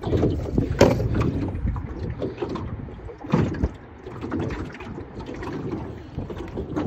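Wind rumbling on the microphone, with a few clicks and knocks as a plastic tackle box and a bait jar are handled.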